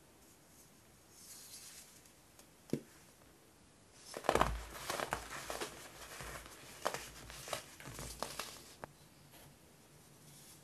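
Molded blocks of baking soda crushed and squeezed in bare hands: crunching and crumbling that starts about four seconds in with the loudest crunch, then goes on as a run of softer crackles for several seconds. One short tap comes earlier.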